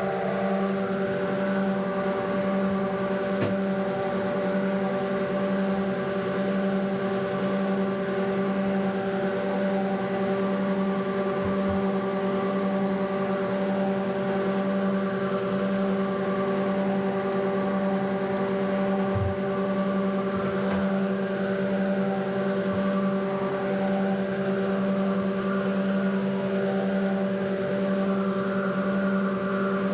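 Steady, unchanging hum of a running motor or machine, with a few faint knocks.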